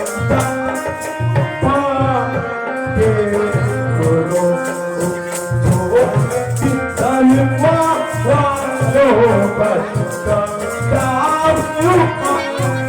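Music with a regular drum beat and a shaken rattle, a wavering melody line running over it.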